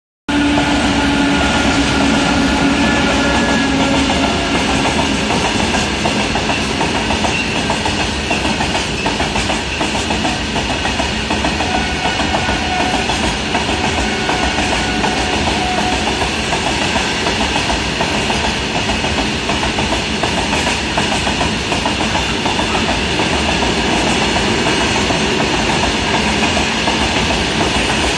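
Freight train of covered box wagons, hauled by an electric locomotive, rolling past: a steady rumble with the clatter of steel wheels over the rails. A faint humming tone is heard in the first few seconds.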